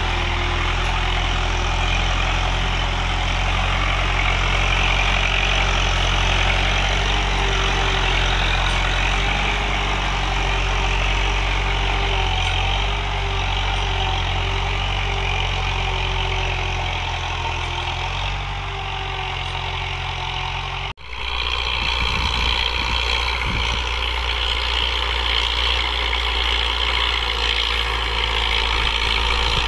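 Farm tractor's diesel engine running steadily under load as it pulls a rigid-tine cultivator through the soil. The sound drops out for an instant about two-thirds of the way through, then the engine carries on.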